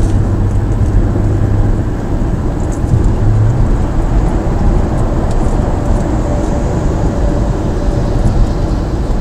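Steady road noise of a car travelling at motorway speed, heard inside the cabin: engine and tyre rumble, with a low engine hum in the first three seconds or so.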